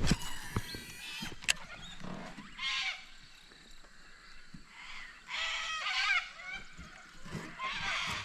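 Birds calling in short bursts of wavering, squawking calls, three times. There is a sharp click at the start and another about a second and a half in.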